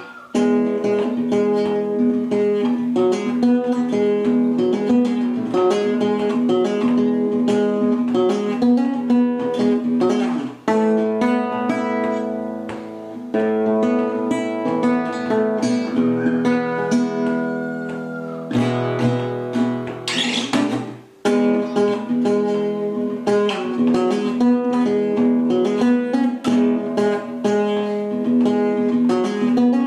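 Solo nylon-string classical guitar played fingerstyle, a steady flow of plucked notes and chords. About two-thirds of the way through comes a brief bright, noisy burst, then a short gap before the playing resumes.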